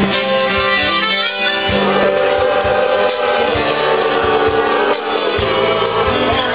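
Live band playing an instrumental passage: guitars and drums with an accordion carrying sustained chords.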